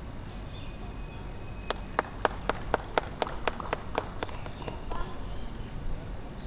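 Sharp hand claps in an even rhythm, about four a second for roughly three seconds, fading out near the end, over a steady background hum of the assembly.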